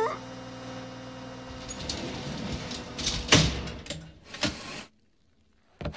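Cartoon sound effects: a steady hum made of several held tones, with two short knocks partway through, cutting off suddenly about five seconds in.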